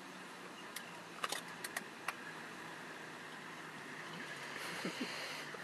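Quiet open-air ambience with a faint low steady hum, broken by a handful of short sharp clicks in the first two seconds.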